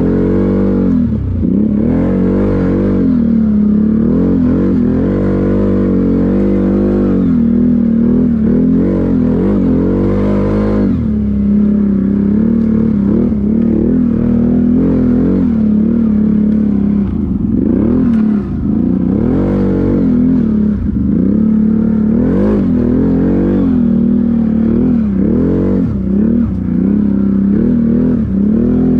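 ATV engine running as it is ridden along a trail, the revs repeatedly rising and falling as the throttle is opened and eased off.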